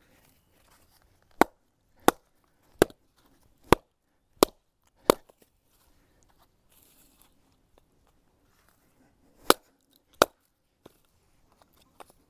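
A baton striking the spine of a large knife, driving it down through firewood to split it into kindling. There are six sharp knocks at an even pace, a pause, and then two more.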